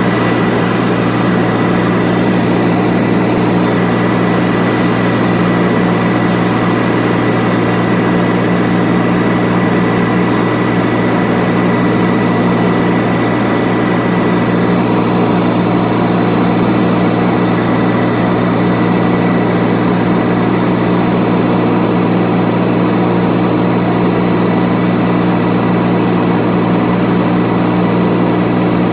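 Turbine tour helicopter in flight, heard from inside the cabin: a loud, unchanging low drone from the rotor and engine, with a steady high whine over it.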